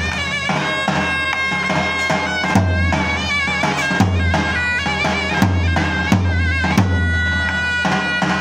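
Zurna playing an ornamented, reedy Turkish folk dance melody over deep, heavy drum beats.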